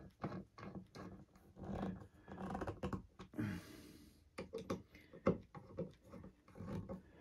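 Hand screwdriver turning screws in a white oak and epoxy board: faint, irregular creaks and scrapes, with a brief hissing rub about three and a half seconds in.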